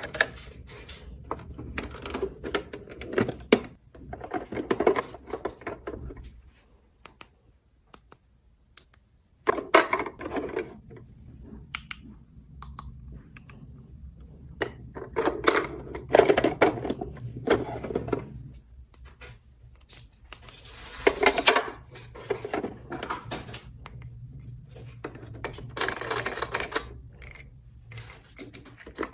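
Small plastic toy pieces being handled, clicking, tapping and rattling against each other in irregular bursts, with short pauses between them.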